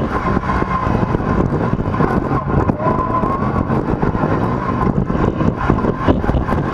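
Yamaha YXZ1000R side-by-side's three-cylinder engine running as the car is driven slowly over a rough dirt trail, heard from inside the open cab. A steady high whine sits over the engine note, with frequent knocks and rattles from the bumps.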